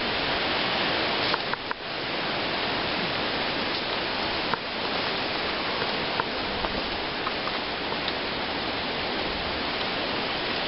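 Steady, even hiss-like rushing noise with a few faint clicks scattered through it.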